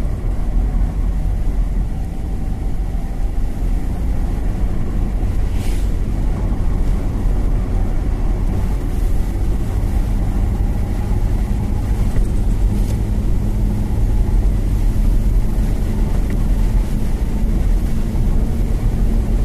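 A motor vehicle driving along at a steady pace, with a heavy low rumble and a steady engine hum. There is a brief faint hiss about six seconds in.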